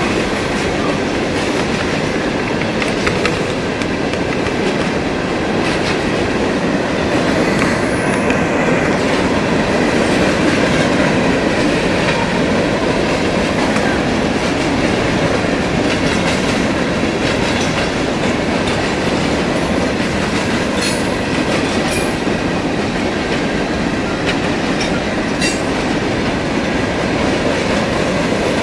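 Empty steel coke hopper cars of a CSX freight train rolling steadily past, with a few sharp metallic clicks in the second half.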